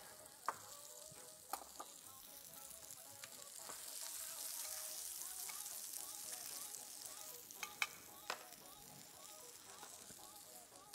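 Cèpes sizzling as they fry in butter with a garlic clove in a pan. The sizzle swells a little around the middle, and a few sharp clicks come near the start and again about eight seconds in.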